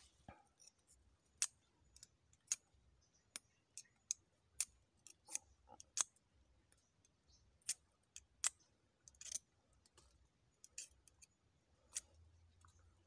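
Sharp metallic clicks and snips of a small hand tool being worked close by, about twenty of them at uneven intervals.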